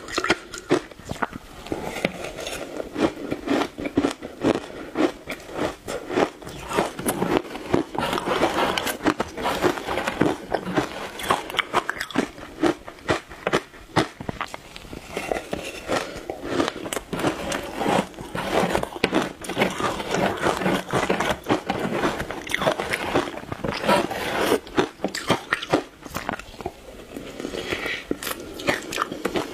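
Close-miked crunching and chewing of shaved ice dusted with matcha powder: a dense, unbroken run of sharp crackling crunches as the ice is bitten and broken between the teeth.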